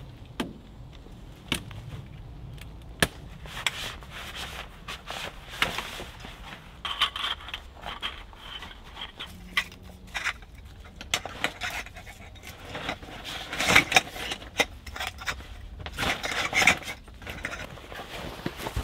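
Camping gear being packed by hand: the metal frame of a folding camp bed clicking and clattering as it is collapsed, with rustling and scraping of fabric and bags in between.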